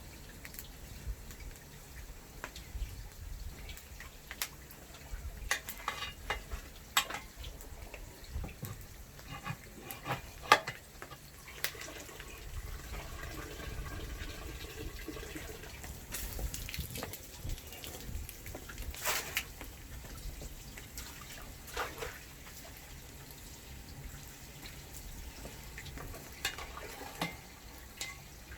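Water splashing and dripping in a kitchen sink, with scattered clicks and knocks of dishes and pots, the sharpest knock about ten seconds in.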